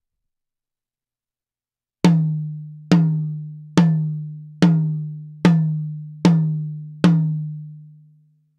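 Tom drum struck seven times at an even pace of a little over one hit a second, starting about two seconds in, each hit ringing out with a low pitched tone. It is close-miked with a moving-coil mic that is moved in relation to the drum, so the recorded tone shifts between hits.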